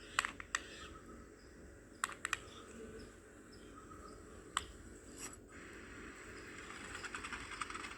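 Small, sharp plastic clicks in groups: three near the start, three about two seconds in, then single clicks, followed near the end by a faint, rapid clicking rattle. These are a toy RC car and its remote control being worked to open and close the car's doors.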